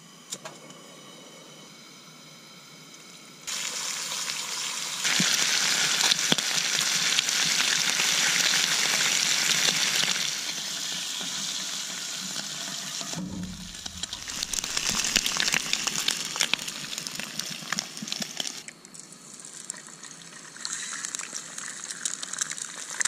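Food frying in a pan: a steady sizzle with crackles and pops that comes in a few seconds in and is loudest for several seconds after. A dull knock sounds about halfway through.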